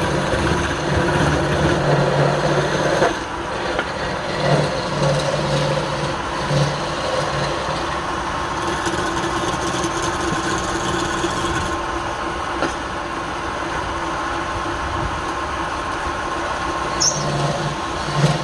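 Woodturning lathe running steadily with a motor hum. A low part of the hum swells now and then, for the first few seconds and again near the end.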